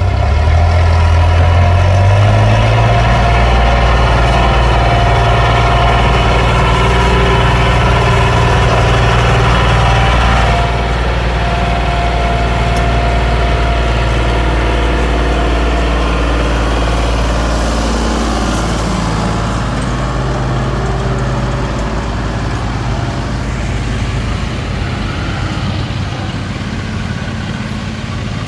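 Diesel machinery engine running steadily close by, its speed rising slightly about two seconds in; it gets a little quieter about ten seconds in.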